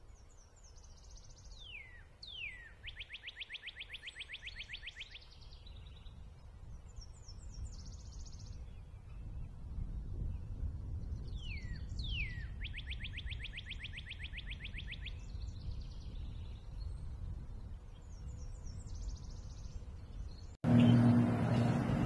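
Male northern cardinal singing twice. Each phrase is two clear down-slurred whistles followed by a fast, even run of about nine notes a second, with fainter, similar song phrases in between. Near the end the sound cuts abruptly to a louder, steady low hum.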